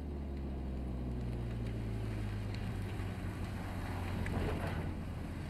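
Low, steady engine rumble of a car rolling slowly past, growing louder and then easing off after about four and a half seconds.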